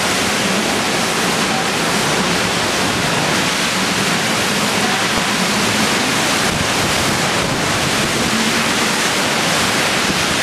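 Hurricane wind and heavy rain: a steady, dense rushing noise with no let-up as the storm lashes the trees.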